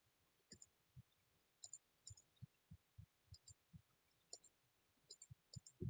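Near silence with faint, irregular clicks of a computer mouse, more than a dozen scattered through.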